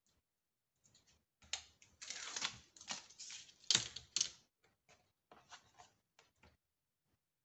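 Sheets of paper and cardstock being handled and slid over a cutting mat: a run of rustles and crinkles, densest and loudest in the middle, then a few lighter taps.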